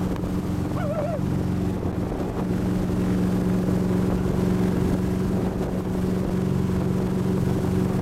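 Motorboat engine running steadily under way while towing a wakeboarder, an even hum that holds the same pitch throughout, over the rush of the boat's wake and wind on the microphone.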